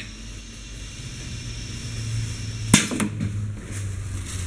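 Dosing filler machine firing a shot of product into a bag: a low hum builds, then a sharp mechanical click a little under three seconds in, with a lighter click just after.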